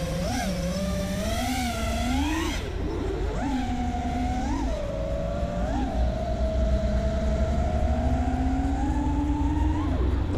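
Brushless motors and props of a 5-inch FPV racing quad (Silk V1 motors, Ethix S3 props) whining as it flies. The pitch surges up and drops back again and again with the throttle, over a low wind rumble.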